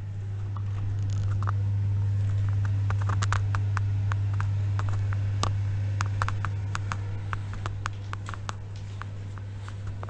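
A steady low hum, with many light, irregular clicks and ticks scattered over it, some in quick clusters.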